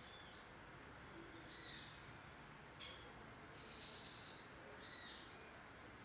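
Short arched bird chirps repeating about every second and a half, with a harsh hissing buzz about a second long just past the middle, the loudest sound.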